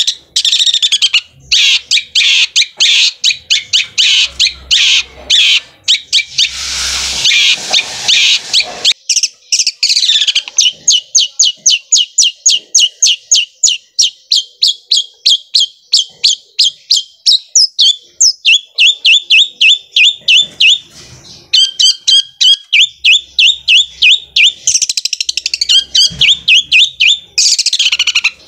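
Long-tailed shrike (cendet) singing hard: a fast, machine-like roll of sharp repeated notes, several a second, the 'sewing machine' roll that keepers prize. A harsh rasping burst comes about a quarter of the way in, and later the notes fall into quick pairs.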